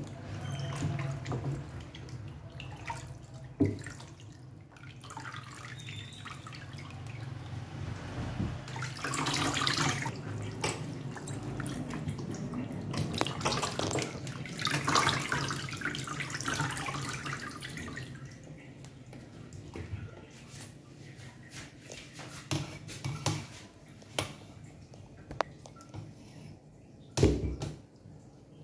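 Water splashing and sloshing as hands rub and rinse a raw leg of mutton in a tub of water in a steel sink, with tap water pouring onto it at times. One short thump near the end.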